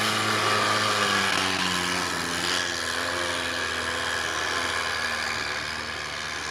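Modified UAZ off-roader's engine working hard under load as it climbs a rutted snowy slope. Its note sags in pitch over the first few seconds, then holds fairly steady.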